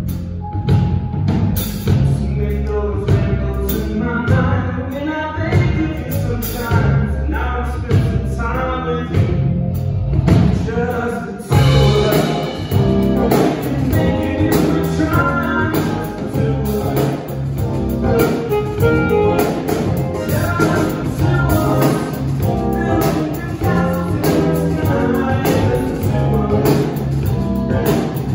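Live band playing a smooth soul groove: electric bass, drum kit, keyboard, electric guitar and saxophone.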